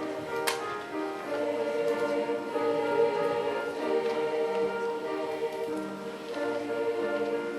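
Girls' middle-school choir singing in long held chords that swell and change pitch, with a short sharp click about half a second in.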